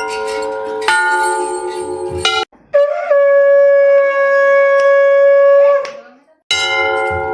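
Temple bells clanging, then a conch shell (shankh) blown in one long steady note of about three seconds that fades away, after which the bells ring again.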